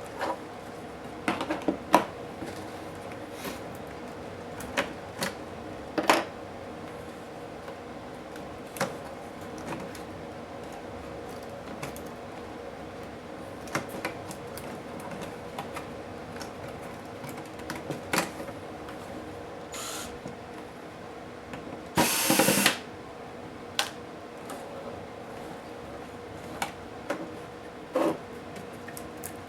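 Scattered clicks and light knocks of small plastic and metal parts being handled while an HP DV8000 laptop is taken apart, over a steady low hum. A louder, noisy burst lasting about half a second comes about three quarters of the way through.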